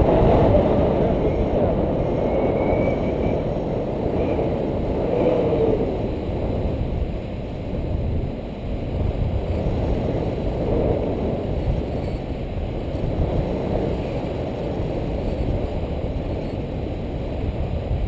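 Wind rushing over a camera microphone in paraglider flight: a steady low rumble that gently swells and eases.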